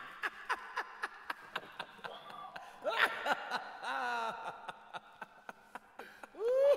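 A man's distressed whimpers and groans, with a rising moan near the end, over a fast regular ticking of about four clicks a second.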